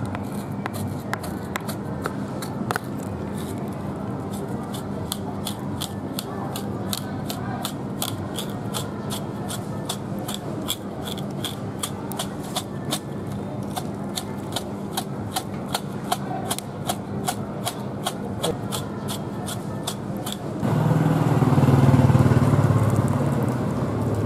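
A thin knife blade scrapes hair off a wet bull's vulva hide in quick, regular strokes, about three a second, over a steady street hum. About twenty seconds in, water poured from a kettle splashes loudly into the plastic basin.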